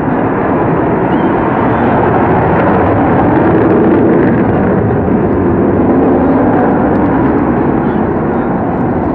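Avro Vulcan bomber in flight, its four Rolls-Royce Olympus turbojet engines making a loud, steady jet noise that swells a little over the first few seconds.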